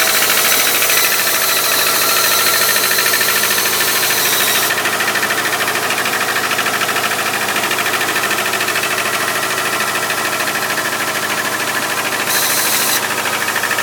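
A 2001 Subaru Outback's 2.5-litre flat-four engine runs steadily with a fast, even rattling knock over the engine note, getting slightly quieter about five seconds in. The owner reports the rattle is strongest for the first 10–15 minutes and has not been cured by a valve adjustment, so its cause is unidentified.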